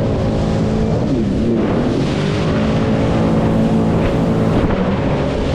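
Personal watercraft (jet ski) engine running under way at steady speed, its pitch dipping briefly about a second in and then recovering, with a hiss of wind and water under it. The new machine is running speed-restricted.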